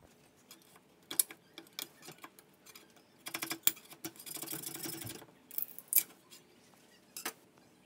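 A metal scraper prying and scraping a printed plastic part off a 3D printer's print bed: a series of sharp clicks and scrapes, with a longer stretch of scraping about three to five seconds in.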